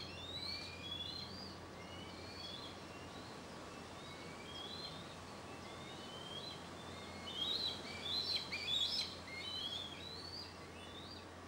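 Birds chirping: a string of short, quick chirps and slurred notes, busiest and loudest about seven to nine seconds in, over a steady low hum.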